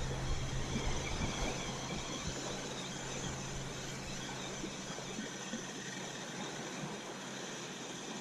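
Steady wind and water noise around a small fishing boat on a lake, with a low hum that fades out in about the first second.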